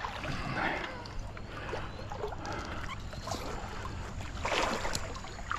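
Water sloshing and splashing around a kayak in a shallow river, with a few light knocks and a louder burst of splashing about four and a half seconds in.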